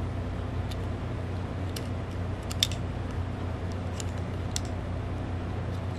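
Short sharp plastic clicks and taps as a small black plastic video light housing and its metal shoe mount are handled: about seven clicks, the loudest a little under halfway. A steady low hum runs underneath.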